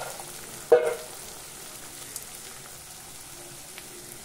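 Onions, green chillies and crushed peanuts frying in oil in a kadai, a steady sizzle, with one brief louder burst about a second in.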